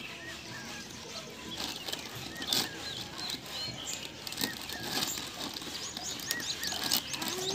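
Dry leaves and a plastic packet rustling and crinkling in short bursts as they are gathered up by hand from a concrete floor. Birds chirp throughout, with a quick run of high chirps near the end.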